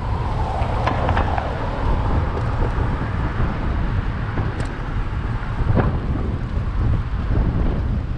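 Wind buffeting the microphone of a moving bicycle, a steady low rumble, with city car traffic going by; a single knock a little before six seconds in.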